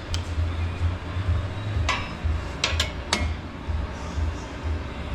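Metal hand tools and suspension hardware clinking, four sharp clinks bunched about two to three seconds in, over a steady low hum.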